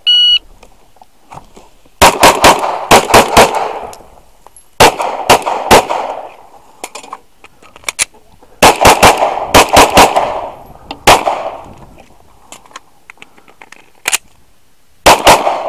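A shot-timer beep starts the stage, then a Glock 19 9mm pistol is fired in rapid strings of several shots. The strings are split by pauses of a second or two, with single shots after them and another quick pair near the end.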